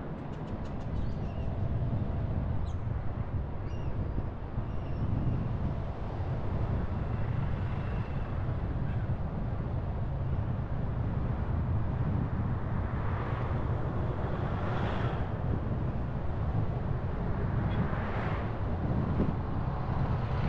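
A car driving on a local road: steady low engine and tyre rumble, with two swells of rushing noise, one about two-thirds of the way through and one near the end.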